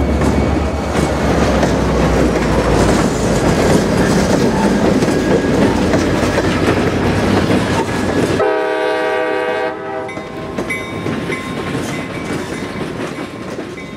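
CSX diesel freight train going by: the locomotive's deep engine rumble fades in the first few seconds, giving way to the clatter of tank and box cars rolling over the rail joints. About two-thirds of the way through, a train horn sounds one blast of about a second and a half.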